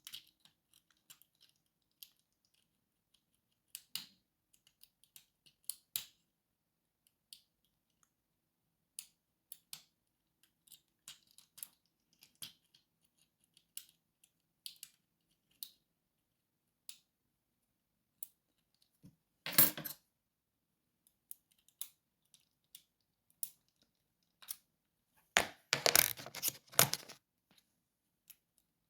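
Lock picking: small metallic clicks and ticks of a pick and tension wrench working the pins of a lock, scattered and irregular. Two louder bursts of metal clatter break in, a short one about two-thirds of the way through and a longer one near the end.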